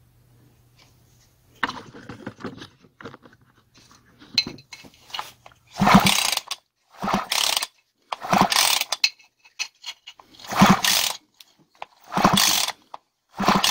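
Husqvarna chainsaw's recoil starter cord pulled sharply six times, roughly once every second or two from about six seconds in. Each pull spins the two-stroke engine over with the spark plug out and held against the cylinder, as a spark test after the ignition coil's air gap has been adjusted. Before the pulls there are only faint handling clicks.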